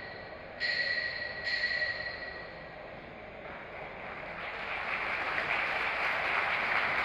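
Two short, steady high tones about a second apart near the start, then applause from the arena audience building up from about halfway through.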